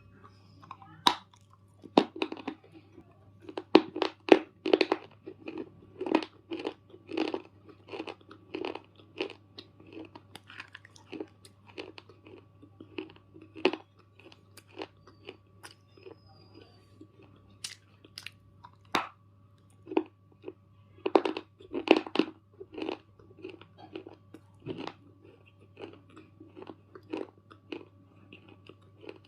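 Close-up biting and chewing of a hard, crunchy black bar: a run of sharp crunches, about one to two a second, loudest in clusters in the first few seconds and again about twenty-one seconds in. A low steady hum sits underneath.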